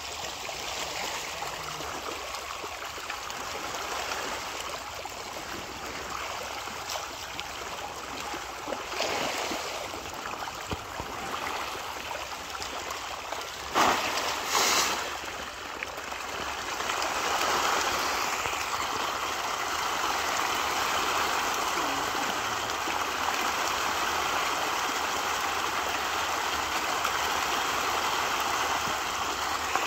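A crowd of fish thrashing and splashing at the water's surface in a feeding frenzy, a steady churning of water. About 14 seconds in there is a brief loud hiss as a scoop of feed pellets scatters onto the water, and from about 17 seconds in the splashing grows louder and more intense.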